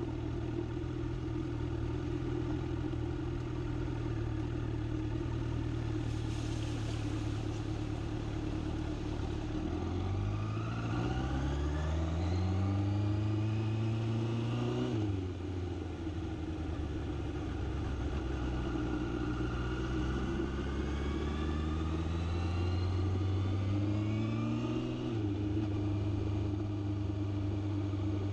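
Vehicle engine running steadily. About ten seconds in it climbs in pitch for some five seconds, then drops abruptly. It does the same again from about twenty seconds in, like accelerating and then changing gear.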